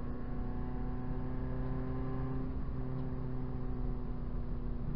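Proton Saga BLM race car's four-cylinder engine running under way through a corner, heard from inside the cabin, its pitch easing slightly.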